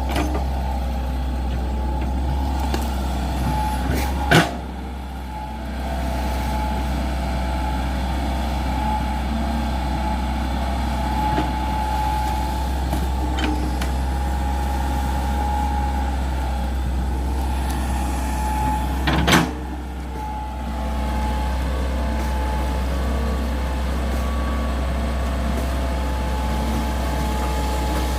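Hydraulic excavator's diesel engine running steadily while trenching, with a steady higher tone above the engine hum. Two sharp knocks come about 4 and 19 seconds in, each followed by a brief dip in the engine sound.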